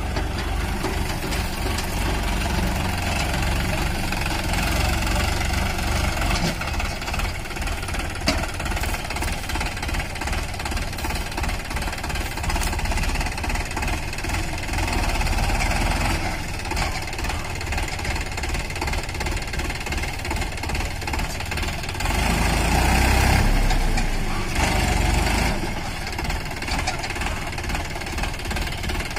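Sonalika DI 47 RX tractor's three-cylinder diesel engine running with a steady clatter while working a trolley loaded with soil. The engine revs up for a few seconds about three-quarters of the way through, then settles back.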